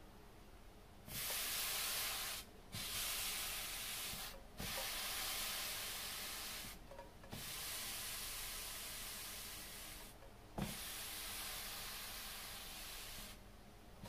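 Hot Tefal non-stick frying pan hissing as it sits on a damp towel, steam coming off as the pan is cooled before the next pancake. The hiss comes in about five stretches of two to three seconds with short breaks between them, and there is a sharp knock of the pan about ten and a half seconds in.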